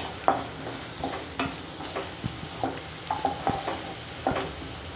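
Chopped onions sizzling in a little oil in a non-stick kadai as a spatula stirs and scrapes them around the pan in irregular strokes, the onions being sautéed until soft.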